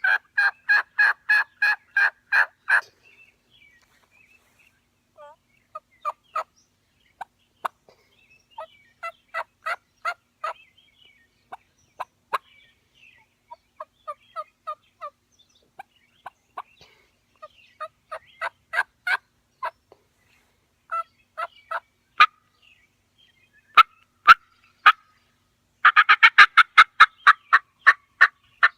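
Lynch Mob two-reed batwing diaphragm turkey call blown in the mouth, imitating a hen turkey. It opens with a loud, even run of about ten notes, goes on with softer, spaced single notes and short series, and ends with a fast, loud run of notes.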